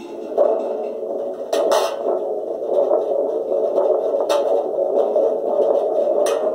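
Home-made spring thunder drum, a small metal-bottomed can with a stretched coil of heater-element wire fixed through its bottom, shaken so the spring sets the can rumbling in a continuous, rolling, thunder-like boom. Three sharper metallic cracks stand out: about a second and a half in, past four seconds, and near the end.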